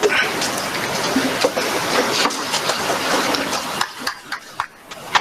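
A group of people getting up from their chairs together: a steady shuffling, rustling noise with scattered knocks and scrapes that dies down a little before the end.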